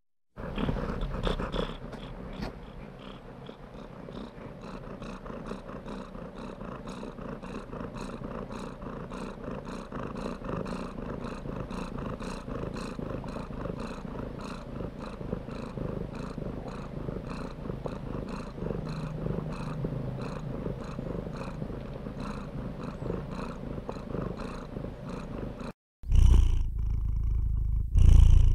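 Domestic cat purring steadily in an even rhythm, close to the microphone. Near the end it breaks off briefly and a louder, deeper purr begins.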